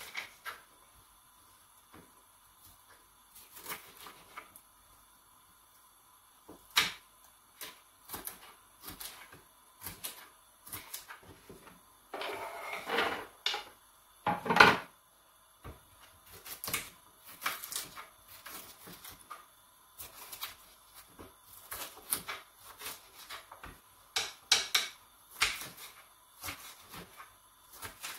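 Kitchen knife chopping bell peppers on a wooden chopping board: irregular knocks of the blade against the board, with a short noisier stretch about halfway through.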